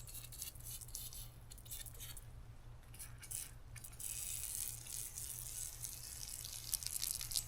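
Faint, irregular crackling and ticking of aircraft paint stripper working on a sprayed-on paint coat, with a low steady hum beneath.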